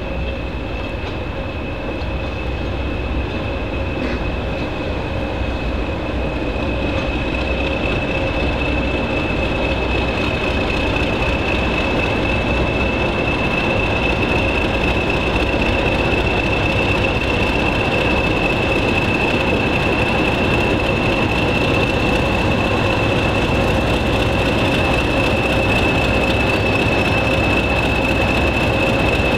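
Diesel-hauled heritage train running, a low engine rumble with a steady high whine held over it, growing louder over the first dozen seconds and then holding.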